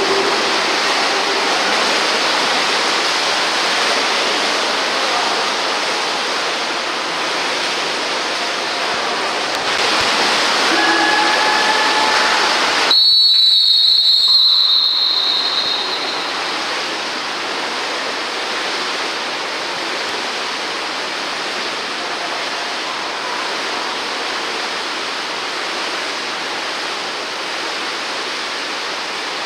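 Steady splashing and hubbub of a water polo game in the pool, with one shrill referee's whistle blast of about two seconds near the middle.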